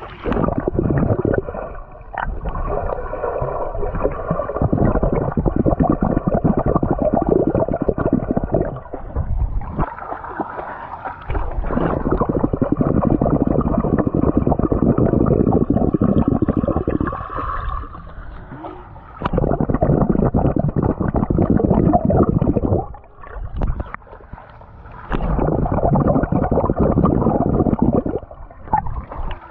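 Muffled underwater sound of swimming-pool water rushing and bubbling around a submerged GoPro, with a swimmer's exhaled bubbles. It comes in long loud stretches, broken several times by brief quieter gaps.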